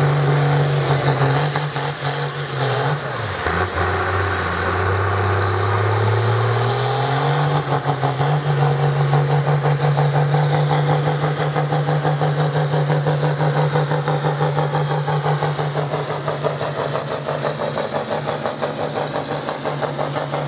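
Competition pulling tractor's engine running hard under load as it drags the weight sled down the track. Its revs drop sharply about three seconds in, climb back over the next few seconds, then hold steady with a rapid pulsing beat.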